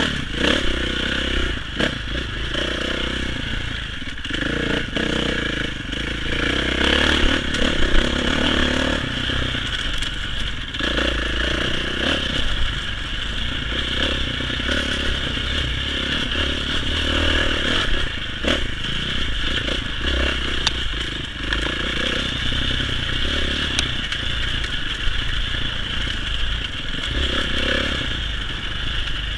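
Dirt bike engine running steadily under way along a dirt trail, heard from a helmet camera, with occasional short knocks from the ride over the ground.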